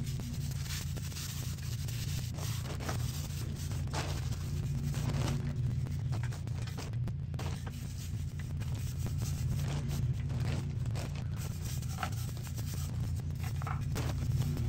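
A stiff bristle brush scrubbing a foam-covered aluminum engine block in repeated short, scratchy strokes, over a steady low hum.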